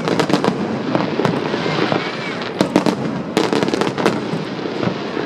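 Fireworks display: a continuous crackling din with sharp bangs going off irregularly, several a second at times.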